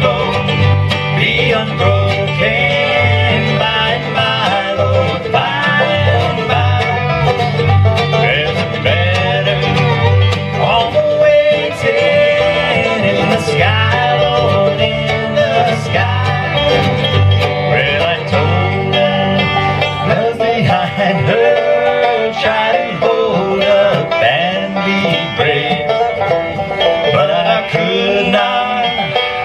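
A bluegrass band playing an uptempo number live: banjo, mandolin, fiddle and acoustic guitar over an upright bass plucking a steady beat.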